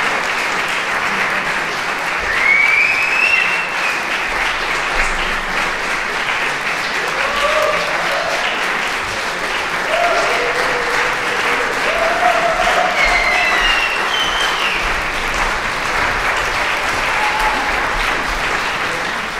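Audience applauding steadily, with a few voices calling out and cheering over the clapping.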